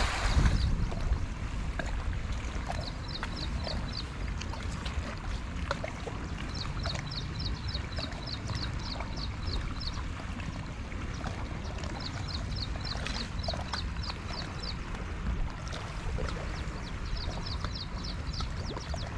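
A cast net lands on the canal water with a brief splash at the start. Then a bird calls in four runs of quick, high chirps, about seven a second, over a steady low rumble.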